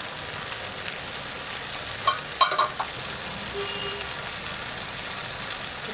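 Okra, dried prawns and tomatoes frying in an uncovered pan, a steady sizzling hiss. A few brief, louder sharp sounds come about two seconds in, and a short faint beep a little later.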